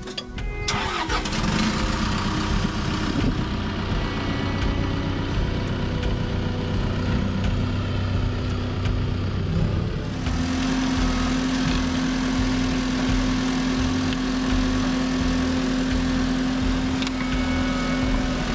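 Bulldozer's diesel engine running steadily under load while pulling a ballast applicator; the engine note steps up and gets louder about ten seconds in.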